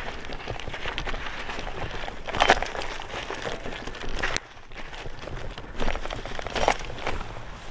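Drop-bar bicycle riding over sand and loose stones: a steady crunch and hiss from the tyres, with sharp knocks and rattles from the bike as it hits bumps, the loudest about two and a half seconds in and more near the end.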